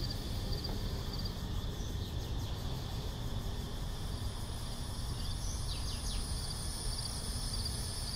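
Cicadas buzzing in a steady high-pitched drone over a low background rumble, with a few faint short bird chirps.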